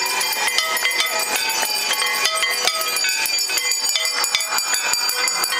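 Many temple bells ringing at once: overlapping metallic strikes at many different pitches, each leaving a ringing tone, in a continuous clanging din.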